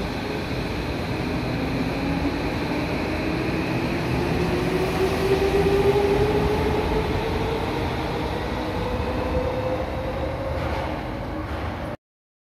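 Electric commuter train accelerating: the traction motors give a whine that rises steadily in pitch over the rumble of the wheels. The sound cuts off abruptly near the end.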